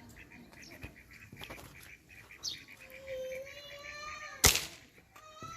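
A single sharp air-rifle shot about four and a half seconds in, the loudest sound here. Before it a bird gives one drawn-out call, over a steady rapid high chirping.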